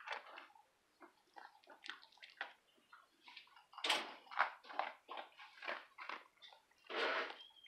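Dog eating dry kibble from a bowl: irregular crunching and chomping, with kibble shifting in the bowl. The loudest bursts come about four seconds in and again near the end.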